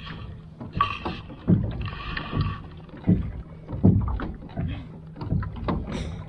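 A wooden paddle stroking through lake water beside a small sailboat's hull, with irregular swishes and splashes about once a second; the boat is being paddled because there is no wind to sail.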